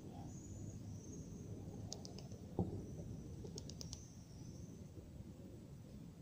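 Steady low outdoor rumble, with one short thump about two and a half seconds in and a few quick, sharp clicks just before and after it.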